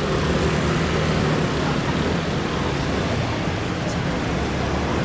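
Steady engine and road noise of a slow-moving vehicle in street traffic, with a low even hum.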